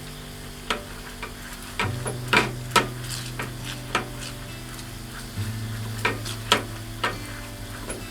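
A kitchen utensil stirring food, clicking against a pan or bowl about a dozen times at an irregular pace over a light sizzling hiss.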